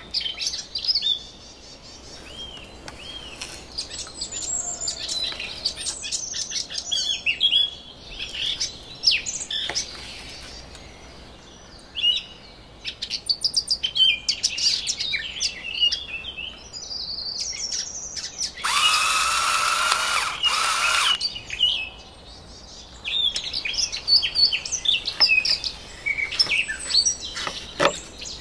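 Songbird singing a varied run of short chirps and warbled phrases. About two-thirds of the way in, a loud, harsh buzzing noise lasts about two seconds.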